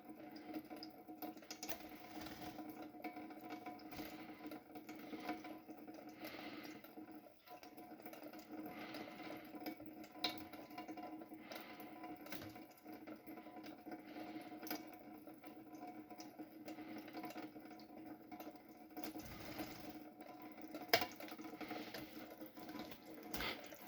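Tap water running and splashing faintly over a steady hum, with scattered small clicks and knocks and one sharper knock near the end.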